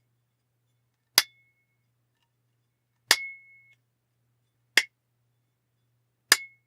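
An aluminum baseball bat struck four times, each a sharp metallic hit. Several hits leave a brief high ring, the longest after the second hit.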